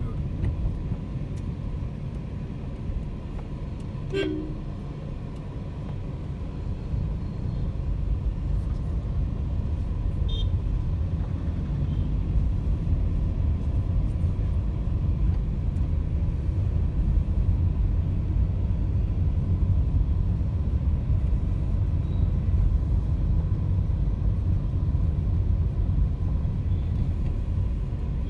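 Engine and road rumble of a moving car, heard from inside the cabin, getting louder about a third of the way through. A short horn toot sounds about four seconds in, and another brief tone comes near ten seconds.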